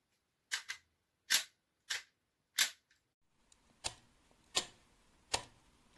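A series of sharp clicks, about eight at a fairly even pace of roughly one every two-thirds of a second, the first one doubled and a short pause midway.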